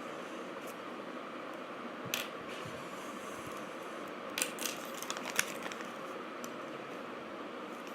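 A few short clicks and taps from small plastic pieces being handled, one about two seconds in and a small cluster a little past the middle, over a steady hiss.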